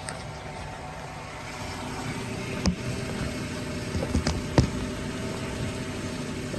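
Popping from a Dodge's suspension, recorded up close inside it over the steady drone of the running vehicle: one sharp pop about two and a half seconds in, then a quick cluster of three pops around four seconds in, the last the loudest. The pops are the suspension noise being tracked down.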